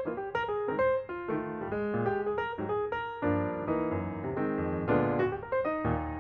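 Background piano music: a steady melody of struck notes over chords.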